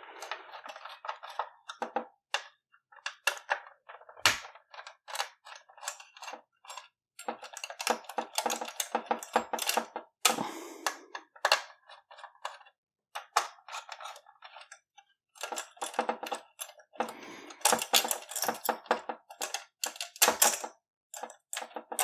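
Screwdriver working the Phillips screws out of a metal clamp inside a PlayStation 4: an irregular run of light clicks and scrapes, with small metal parts clinking.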